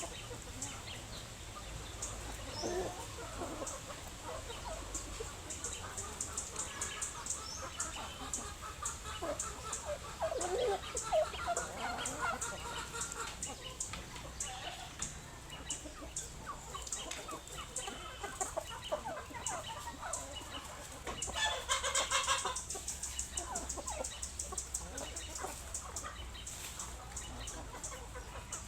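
A flock of chickens clucking, with many small sharp clicks running through it and a louder stretch about three-quarters of the way through.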